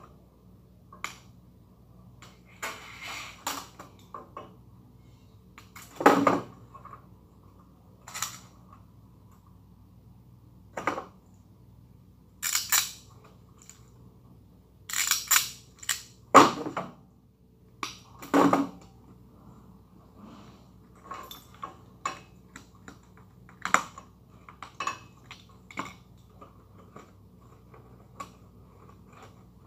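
Irregular plastic clicks, taps and rustles of wiring work inside an elevator control panel, as wires and plastic wiring parts are handled among the terminal blocks and wire duct. A faint steady hum sits underneath.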